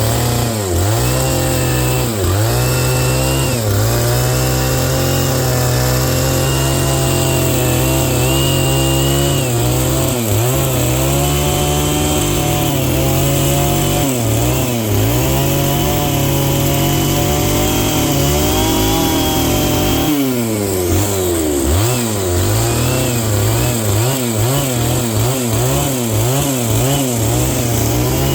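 Stihl MS 660 two-stroke chainsaw with a ripping chain on a 36-inch bar, running hard while ripping a log lengthwise. Its pitch sags and recovers every second or two as the chain loads in the cut, with a sharper drop and pick-up about twenty seconds in.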